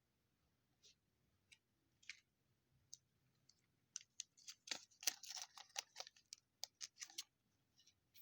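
Trading cards being handled: soft clicks and scrapes of cards sliding over one another. A few come in the first half, then a dense flurry lasts about three seconds from halfway.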